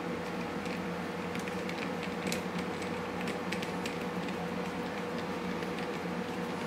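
A hand screwdriver driving a small screw into a thin wooden plate: faint, scattered little ticks and creaks over a steady background hum.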